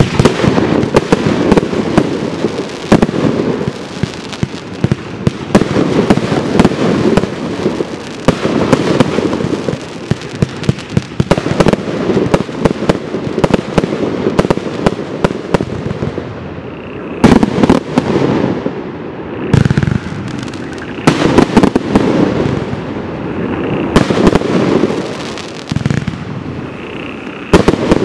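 Geisha 'Event Thunder and Roses' 120-shot fireworks compound cake firing: a rapid, uneven string of launches and bursting aerial shots, some in quick clusters, over a continuous noisy wash.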